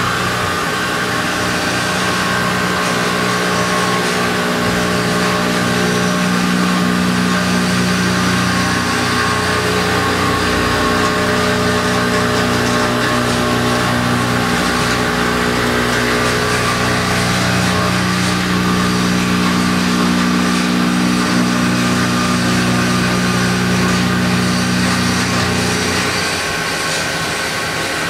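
CNC milling machine spindle running while an end mill cuts 6061 aluminum plate: a steady, loud machining hum with layered tones. A couple of seconds before the end the tones stop and it gets a little quieter as the cut finishes.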